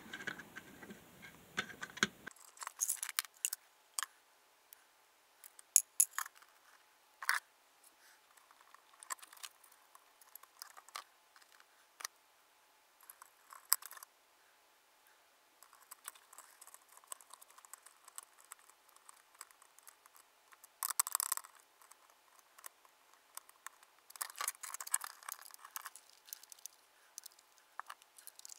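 Plastic housing of a plug-in power meter handled and fitted back together by hand: scattered light clicks and taps, with a few short bursts of plastic scraping and rubbing in the second half.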